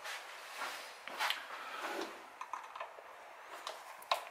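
Scattered light clicks and scrapes of a screwdriver and hands working the hose clamp on the throttle-body intake boot, with a sharper click near the end.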